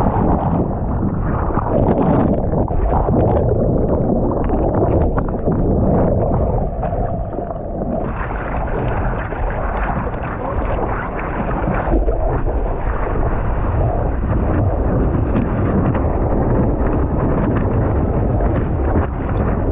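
Wind rumbling on the microphone over sloshing sea water. The sound is muffled at first and gets brighter about eight seconds in.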